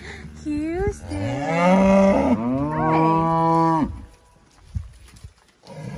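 Beef cows (Angus and Hereford crosses) mooing: a short moo, then two long, loud, overlapping moos that stop about four seconds in. The herd is calling for the grain it expects to be fed.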